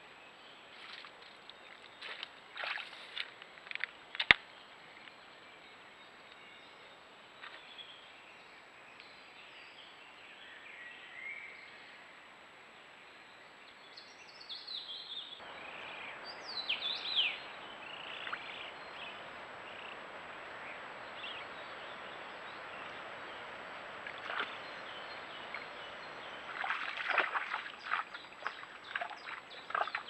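Trail-camera forest ambience with a steady hiss. A few sharp clicks and rustles come in the first few seconds, and a short run of falling bird calls comes about sixteen seconds in. Near the end there is a burst of rustling as a red deer walks through the wet grass.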